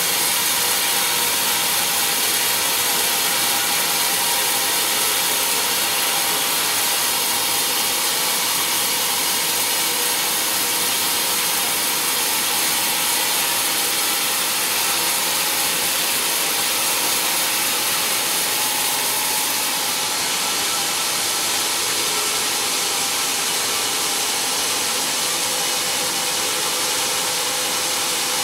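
Sawmill band saw running and cutting lengthwise through a large timber beam: a steady, high hiss of the blade in the wood.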